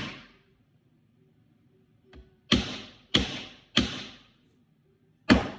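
Hammer driving nails into a wooden birdhouse frame, loud: one blow at the start, a light tap, then three quick blows a little over half a second apart and one more near the end, each ringing briefly.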